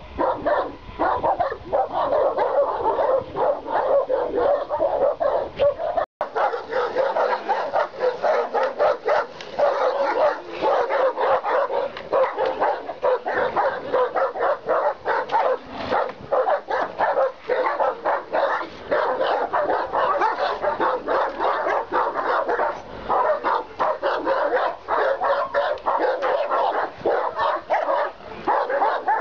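Caucasian Shepherd Dogs barking rapidly and without pause, the barks of more than one dog overlapping. The sound cuts out for an instant about six seconds in.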